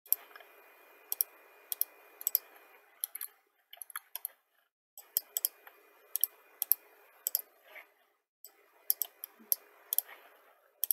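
Computer mouse clicking repeatedly while operating 3D modeling software, about twenty sharp clicks spread irregularly and some in quick doubles. A faint hiss cuts in and out in several stretches.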